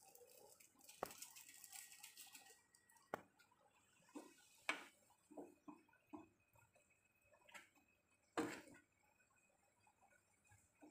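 Faint clinks, taps and scrapes of a metal slotted spoon against a steel saucepan as noodles in milk are stirred, with a few sharper knocks, the loudest about eight and a half seconds in.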